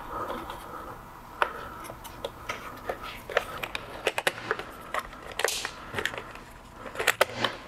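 Hand tools prying at a vinyl window jamb liner: a putty knife and a plastic pry tool scraping, then irregular clicks and knocks of plastic parts as the sash-balance coil is worked loose.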